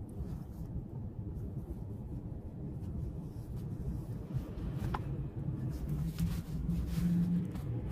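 Car interior noise while riding: a steady low rumble of engine and road heard inside the cabin, with a few faint clicks and rustles.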